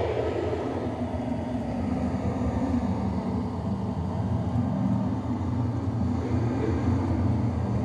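Live electronic music: a deep, steady rumble made by computer processing of a geomungo's sound in real time, played through loudspeakers, in the piece's slow, low-register opening section.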